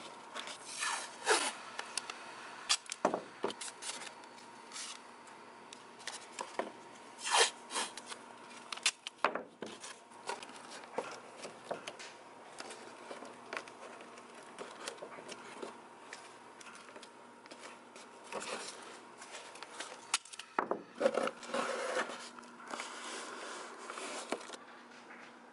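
Painter's masking tape being pulled off the roll, torn and rubbed down by hand onto the back of a plastic car bumper, as irregular sharp rips, crinkles and rubs.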